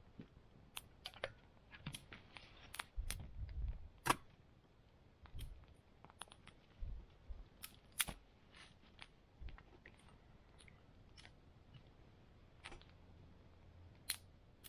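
Small sticks of kindling snapping and clicking as they are broken up and fed into a small wood-burning camp stove: irregular sharp cracks, the loudest about four and eight seconds in, with a few dull knocks between three and four seconds in.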